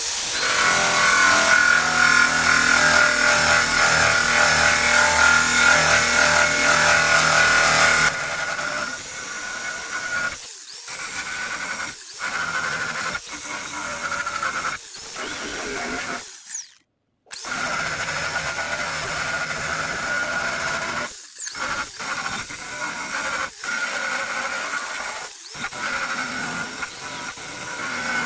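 Electric drill spinning a worn-down wire wheel against corroded steel body panel, scrubbing off rust. It runs steady and loud for about eight seconds. Then it goes lighter, stopping and speeding back up again and again in short spurts.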